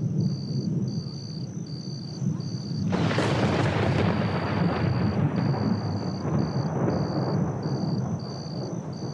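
Thunder rumbling, with a sudden loud clap about three seconds in that rolls away over several seconds. Crickets chirp steadily in a pulsing rhythm throughout.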